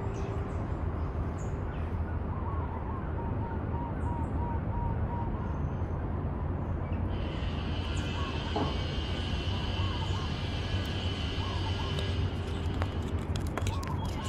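Outdoor ambience with a steady low rumble and a bird calling a series of short repeated notes; a high steady hiss joins about halfway through. Near the end, a red crab's legs and claws click and scrape against a small action camera sitting on the ground.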